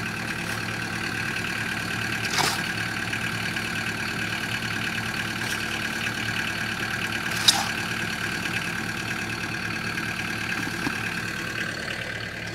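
Vermeer mini track loader idling steadily with a high, even whine over the engine drone. Two short sharp scrapes or knocks of a shovel working concrete out of the loader's bucket into a post hole come a couple of seconds in and again about five seconds later, the second louder.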